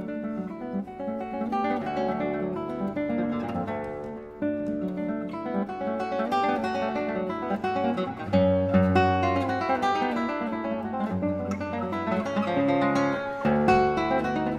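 Solo classical guitar played fingerstyle: a continuous run of plucked nylon-string notes over changing bass notes.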